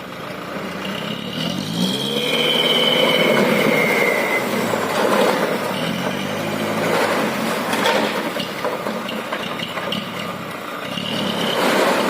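Heavy diesel dump truck engine revving up and working hard, with high squeals over it about a second in and again near the end.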